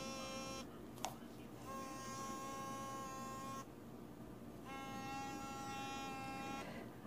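Mobile phone's incoming-call alert: a steady buzzing tone in bursts of about two seconds, each about a second apart. A single sharp click comes about a second in.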